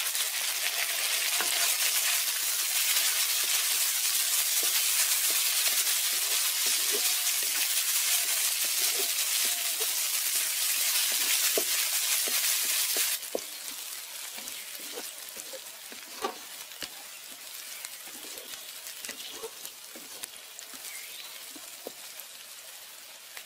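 Chopped onion, garlic, ginger and green chillies sizzling in hot oil in a metal kadai, with scattered scraping clicks of a wooden spatula stirring them. The sizzle drops abruptly to a quieter level a little past halfway.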